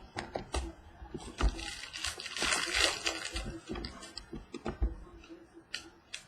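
Football card packs and cards being handled: a run of small taps and clicks from cards being flipped and set down, with a louder crinkling rip of a pack wrapper about two seconds in.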